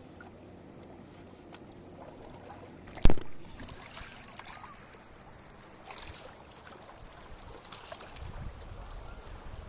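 Faint running water of a river, with one sharp knock about three seconds in.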